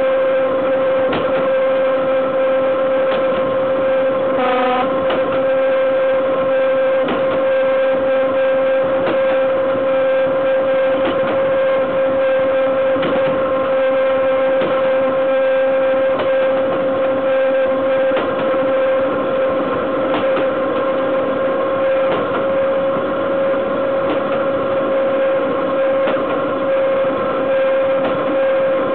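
Running gear of a BDZ class 43 electric locomotive rolling at speed, heard right beside the bogie wheel. A steady high whine sits over a rushing noise of wheels on rail, with frequent irregular clicks and knocks.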